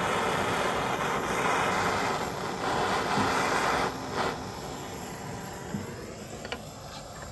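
Hand-held gas torch on a hose, hissing steadily as its flame melts a stick of sealing wax. The hiss drops away about four seconds in.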